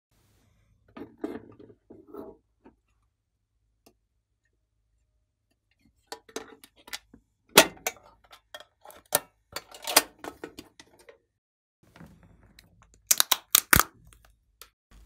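Hard plastic containers being handled and opened: soft rubbing and knocking at first, then a run of sharp plastic clicks and snaps from the lids, with the loudest cluster of snaps near the end.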